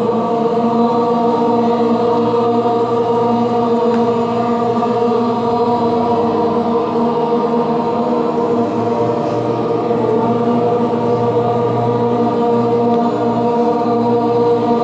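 A group of voices chanting one long, steady held tone together, a meditation chant on the exhale.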